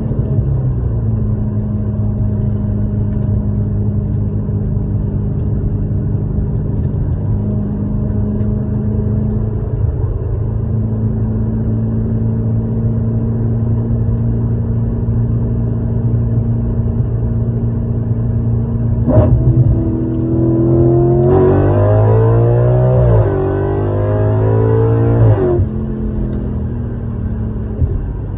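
Audi RS5's 4.2-litre V8, running catless through race headers, heard from inside the cabin: a steady deep drone at light throttle, then about 21 seconds in a wide-open-throttle pull. The revs climb, drop sharply at an upshift of the dual-clutch gearbox about two seconds later, and climb again until the throttle is lifted about 25 seconds in.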